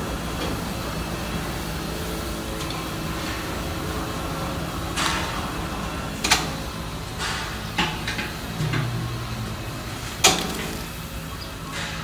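A disinfectant sprayer hissing in short bursts over a steady low hum. There are several bursts in quick succession from about five seconds in, and a last sharp one near the end.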